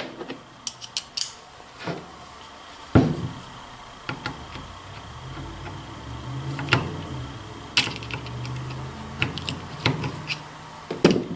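Small metal tools and parts clicking and clinking as a screwdriver bit is picked out and fitted, then used on the screws of a Savage 64 .22 rifle's action. A low steady hum runs through the middle few seconds.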